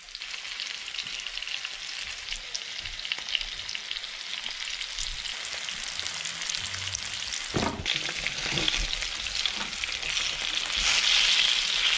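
Flour-coated fish fillets shallow-frying in oil in a pan: a steady crackling sizzle that gets louder near the end, with a few small knocks as a fillet is turned over with a fork.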